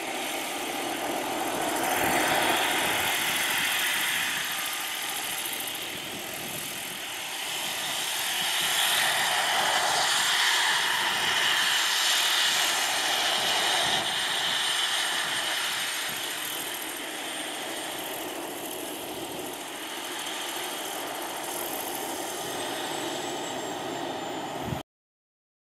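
Radio-controlled scale Kamov Ka-32 helicopter with coaxial rotors, running in a low hover and settling onto the tarmac. The steady rotor and motor noise swells louder and softer as the model moves, then cuts off suddenly near the end.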